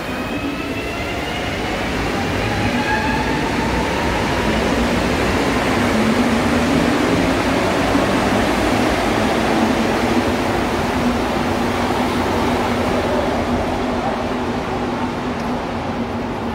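Rubber-tyred Azur (MPM-10) metro train pulling out of the station: its motor whine rises in pitch over the first few seconds, then the running noise builds to a peak about halfway and slowly eases off.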